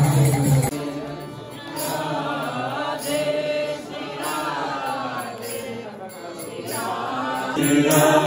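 Group devotional singing (bhajan/kirtan chanting), voices carrying a bending melody. It follows a brief loud stretch of music with a steady low drone that cuts off abruptly less than a second in.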